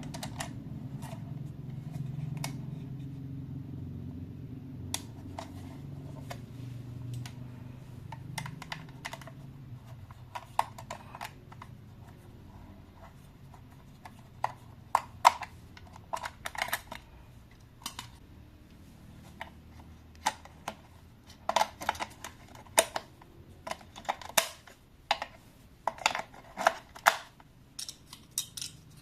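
Hands handling a toy's plastic packaging and parts: irregular clicks, snaps and scrapes, growing denser and louder in the second half, over a low hum that fades out after about ten seconds.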